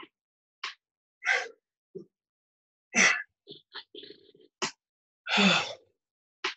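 A man breathing hard from exertion during push-ups: a string of forceful breaths, short sharp puffs between three louder, longer gasping breaths, with short silences between them.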